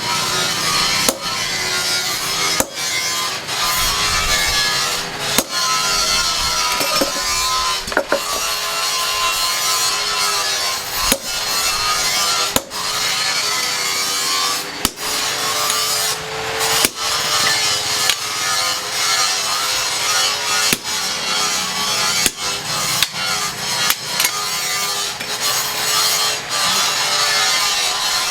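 A power tool running under load, with a steady motor whine that wavers slightly as it cuts or grinds, easing off briefly every second or two.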